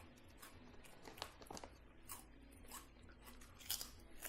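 Faint close-up eating sounds: irregular crunches, wet mouth clicks and smacks of chewing, the loudest crunch a little before the end.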